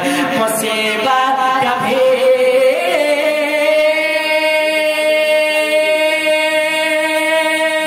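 A male naat singer's voice, amplified through a microphone, sings a winding line and then holds one long, steady note from about three seconds in.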